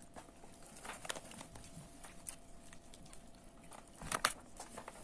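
A hand working flour into a wet dough mixture in a metal bowl while more flour is poured in from a paper bag: soft, irregular rustling and pattering, with a louder burst of rustling about four seconds in.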